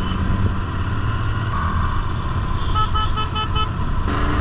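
Motorcycle engine and wind rumble while riding, with a quick run of about five short horn beeps a little under three seconds in.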